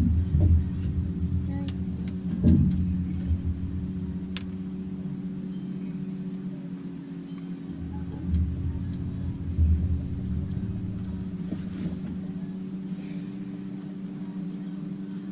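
A small boat motor hums steadily at an even pitch. Several low thumps come through near the start, about two and a half seconds in, and twice more later.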